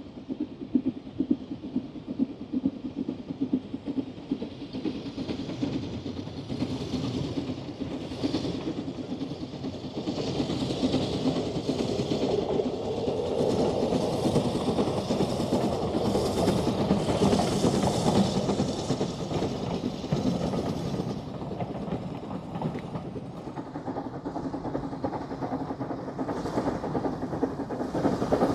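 A Kitson-built steam tank locomotive running with its train: a rhythmic clatter of exhaust and wheels on the track that grows louder toward the middle, eases off, then rises again near the end.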